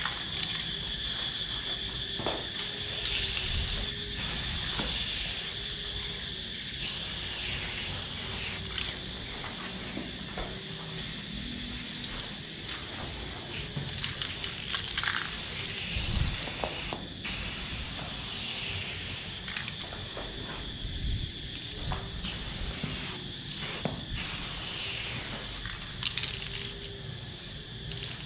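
Aerosol spray paint can hissing as silver chrome paint is sprayed onto a wall in long strokes, pausing briefly between strokes.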